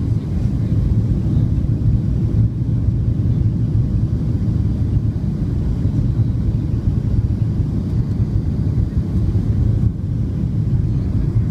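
Steady low rumble of engine and airflow noise inside the cabin of a Boeing 737-700 with CFM56-7B engines, descending on final approach.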